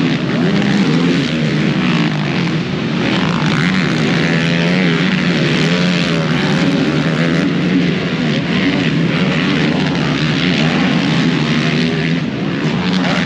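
ATV engines running and revving, their pitch rising and falling, over a steady lower engine drone.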